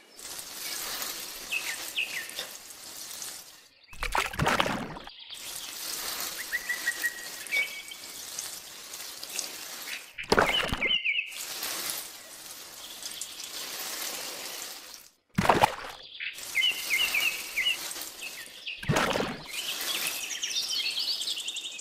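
Water pouring steadily from a small watering can, with birds chirping throughout and four brief louder bursts.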